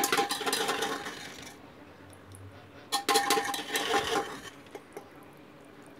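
A metal spoon scraping and clanking inside a pressure cooker as cooked bottle-gourd sabzi is scooped out. There are two bouts of scraping, each about a second and a half long with a metallic ring, the first at the start and the second about three seconds in.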